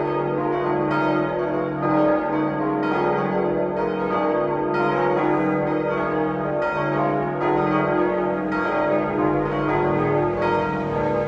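Several church bells of the Liebfrauenkirche swinging and ringing together in a full peal, their strokes overlapping in an uneven, continuous pattern about once a second, heard from inside the church.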